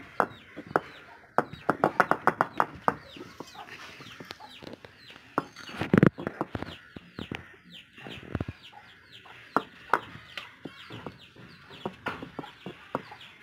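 Chickens clucking and chicks peeping in short falling chirps, over the knocking and rolling of a stone roller on a granite grinding slab (ammi) as soft boiled banana is crushed. A quick run of knocks comes in the first few seconds, and one loud thump about six seconds in.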